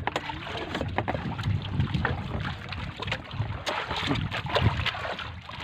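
Metal spoon clinking and scraping in a stainless steel bowl, with many short irregular clicks, over a steady wash of wind and water around a small boat.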